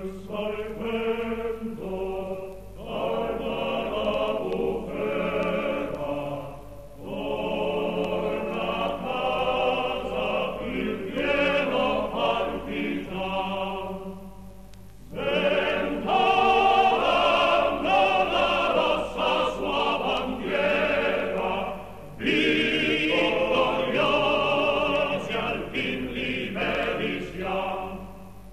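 Music: a choir singing in an operatic style, in long phrases with short pauses between them.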